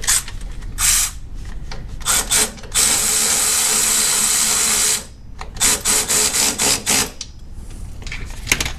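Cordless power driver running a bolt into the front underside of the car. A few short bursts come first, then a steady run of about two seconds, then a string of quick trigger bursts about three a second.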